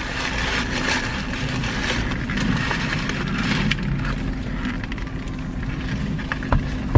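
A car running, with steady engine and road noise heard from inside. Two sharp knocks come near the end.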